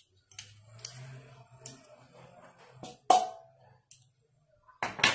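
A metal spoon tapping and clinking against a stainless steel mixing bowl and small containers: a few separate clicks, the loudest about three seconds in with a short ring.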